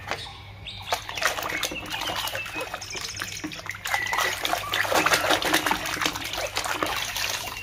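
A hand squelching and splashing through thick red liquid mud, a dense run of wet slaps and splatters that grows louder about a second in.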